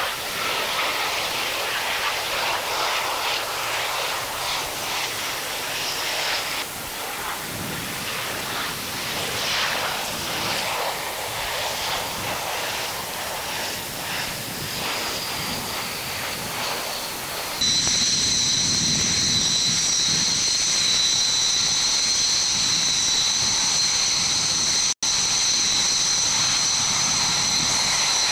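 Mitsubishi T-2 jet trainer landing, its twin Adour turbofans heard as a broad rushing jet noise. About two-thirds of the way through, the sound switches abruptly to the jet close by, its engines giving a loud, steady high whine as it taxis. The sound drops out for an instant near the end.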